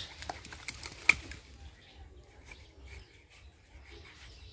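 Butcher's knife cutting down the backbone of a skinned goat carcass: a few sharp clicks and cracks in the first second, the loudest about a second in, then fainter ticks as the blade works through.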